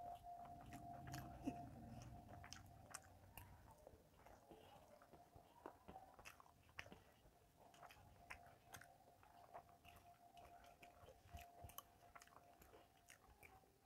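Faint chewing and mouth sounds of a person eating rice and curries by hand, with scattered small clicks as fingers mix food on a steel plate. A faint steady tone hums underneath.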